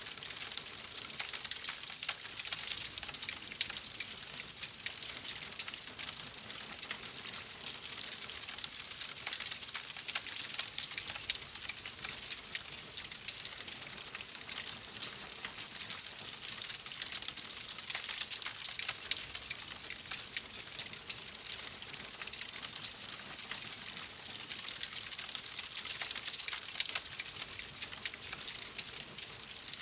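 Steady rain hiss with a wood fire crackling, a dense run of small sharp pops and snaps laid over it.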